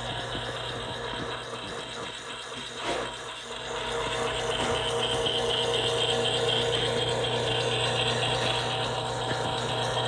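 Dayton 3M138A shaded-pole parallel-shaft gear motor (1/10 HP, 115 V, 60 RPM output) running under power: a steady low electrical hum with a higher whine over it, growing louder about four seconds in.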